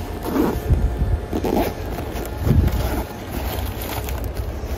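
Steady low rumble of background noise, with the rustle and scrape of a zippered fabric first-aid bag being unzipped and opened.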